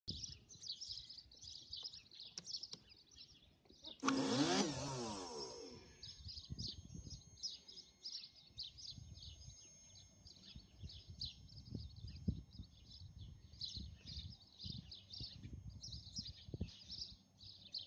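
Birds chirping steadily; about four seconds in, a loud whir sweeping in pitch for about two seconds, the Jetcat P-20 micro turbine's starter briefly spinning during the Xicoy FADEC start sequence. Faint scattered knocks underneath.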